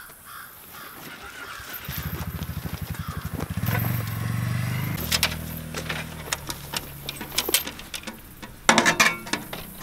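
A small engine starts about two seconds in and settles into a steady low running hum. Near the end, a wire-mesh turtle trap is handled with a loud metallic rattle and clatter over brush rustling.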